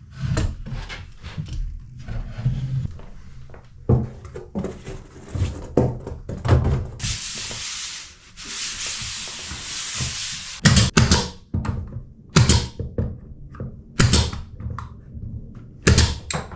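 Handling work at a wooden cabin bulkhead while switches are taken off and wiring is pulled out: a string of short knocks and clatters on wood. About seven seconds in comes a few seconds of steady rasping rub, then a run of sharper knocks near the end.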